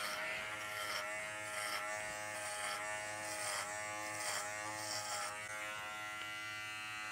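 Kenchii Flash cordless adjustable-blade dog clipper with a guard comb, running on speed 4 and cutting through a thick, dirty Goldendoodle coat. Its steady electric hum dips slightly in pitch about once a second as the blade meets resistance in the dense coat.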